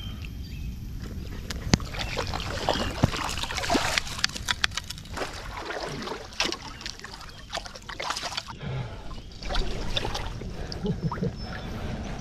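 Water sloshing and splashing as a hooked rainbow trout is drawn in and scooped into a landing net, with many sharp ticks and knocks of handling close to the microphone, densest in the middle.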